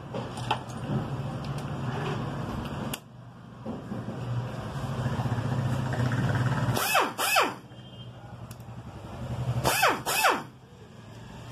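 Impact wrench fired in short bursts, in two pairs about 7 and 10 seconds in, each burst dropping in pitch as it spins down. A steady low hum runs under the first part.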